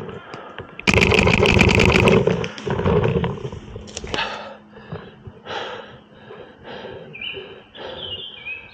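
A paintball player's heavy breathing. About a second in comes a loud scuffling burst with sharp clicks lasting about a second, then hard breaths come roughly twice a second.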